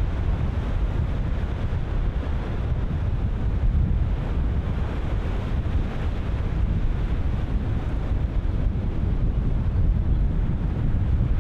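Ocean surf breaking continuously as a steady wash, with strong wind buffeting the microphone in a low rumble.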